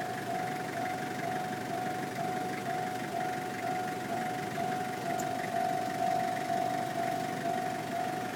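Japanese level-crossing warning bell ringing in a steady, even repeating pattern, over a continuous low rumble. The crossing is being held closed while freight wagons are shunted.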